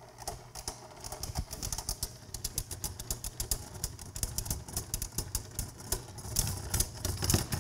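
Rapid, irregular clicking from two Beyblade Burst tops, Geist Fafnir and Infinite Achilles, spinning close together as they wind down in a stamina battle.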